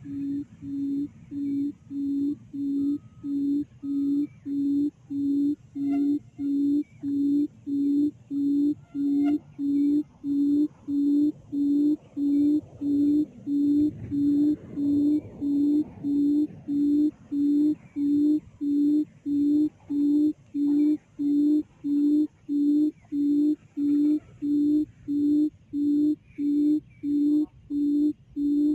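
Recorded quail call played through a speaker as a lure: a low hooting note repeated steadily, about one and a half times a second.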